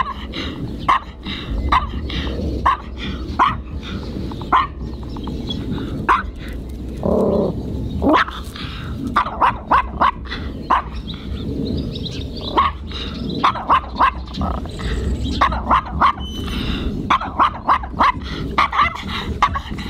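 Small Maltese bichon barking over and over in sharp, high barks, often in quick runs: aggressive barking at a larger dog.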